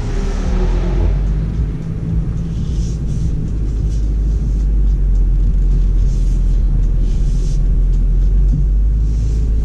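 Steady low rumble inside the cabin of a BMW X4 M40i crawling along a rough dirt trail: engine running at low speed and tyres working over uneven ground.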